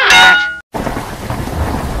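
The last notes of a bright cartoon intro jingle cut off about half a second in; after a brief gap, steady heavy rain starts, with a low rumble of thunder under it.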